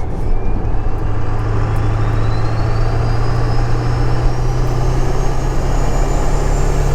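Ford 7.3L Power Stroke V8 turbodiesel pulling under load, its turbocharger whistle climbing steadily in pitch over a steady low engine drone.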